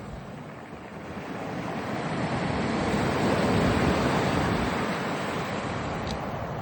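Black Sea surf washing onto the shore, one wave's wash swelling to its loudest about three to four seconds in and then easing off. The sea is calm.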